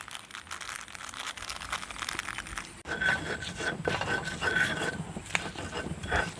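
A plastic seasoning sachet crinkling as it is emptied. About three seconds in, it gives way to a louder rough scraping and knocking: a stone pestle crushing and grinding chilies, shallots and garlic against a stone mortar (ulekan in a cobek) for sambal.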